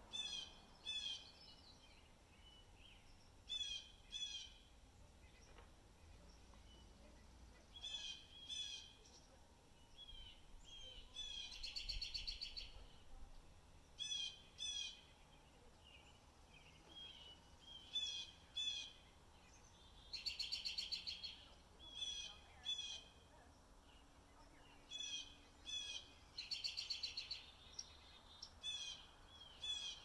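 Small birds calling: short high chirps, mostly in pairs, every couple of seconds, with three rapid buzzy trills of a second or two each.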